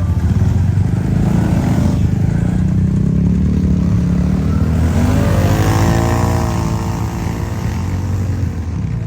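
Off-road vehicle's engine running under load, revving up about five seconds in and then easing off.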